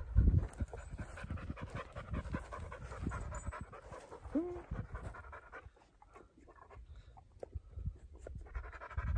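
A man panting, breathing hard after a steep three-hour climb up a mountain.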